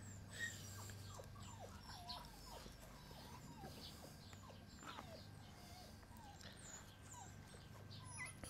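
Fox-red Labrador retriever puppy whining faintly in a string of short, wavering whimpers while it pesters its mother to suckle.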